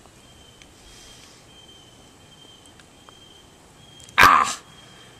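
A man's loud, short gagging cry about four seconds in, his reaction to eating a crawdad. Behind it, a faint, steady, high insect tone.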